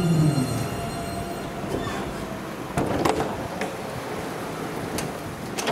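Alstom Citadis tram's electric drive whining down in pitch as the tram brakes to a halt at a stop, the whine dying out in the first moment. Then a steady rumble from the standing tram, broken by a few sharp clicks and knocks.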